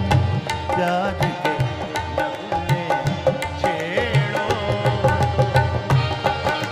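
Instrumental ghazal accompaniment: harmonium and bowed sarangi playing the melody over a steady tabla rhythm, an interlude between sung lines.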